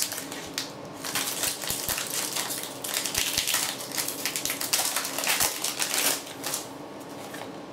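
Foil wrapper of a Pokémon booster pack crinkling and tearing as it is ripped open by hand: a dense crackle that dies down about six and a half seconds in.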